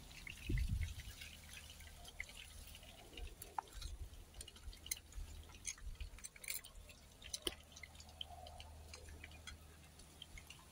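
Hot frying oil crackling in a small pan on a portable gas camping stove, with scattered sharp pops through the whole stretch, over a low steady rumble.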